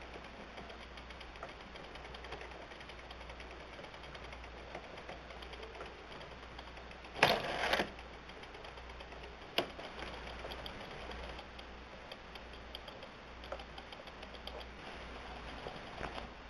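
Hand-cranked automaton's hand-cut wooden gears, cams and levers running, a steady mechanical rattle with faint ticking. A loud clatter comes about seven seconds in and a sharp click about two seconds later.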